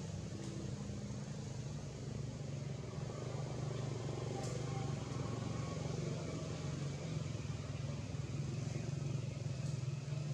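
A motor vehicle engine running steadily, a constant low hum with a couple of faint clicks over it.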